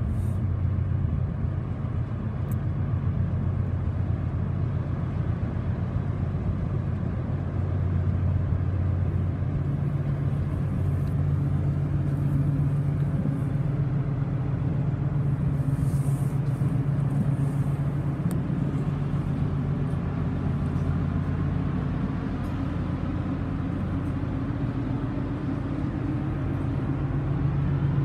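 Engines of the lake freighter Manitoulin running as the ship passes close by: a steady low drone with a deep, even hum.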